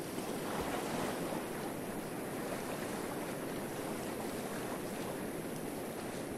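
Steady rush and lapping of the Uruguay River's fast-flowing water at the bank.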